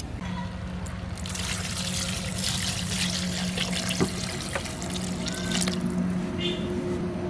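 Water poured in a stream into a wide pan of sautéed chicken curry and potatoes, splashing into the thick masala to make the gravy; the pouring starts about a second in and eases off near the end.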